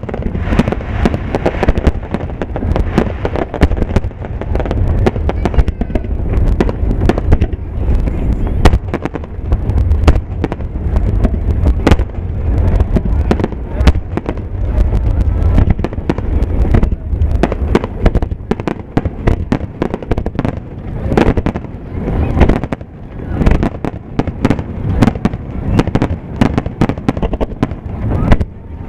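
Aerial firework shells bursting in a dense finale barrage: many sharp reports in quick succession over a continuous deep rumble.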